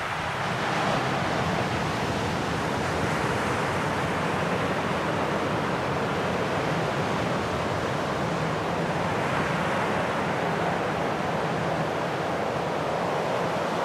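Sea surf washing over a shore, a steady rushing noise that grows a little louder about a second in.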